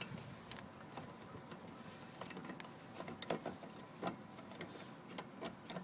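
Faint scattered metallic clicks and taps of hand tools working on loose bolts on a machine, over a faint steady hum.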